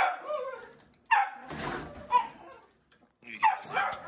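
Dogs barking: a string of short barks, roughly a second apart.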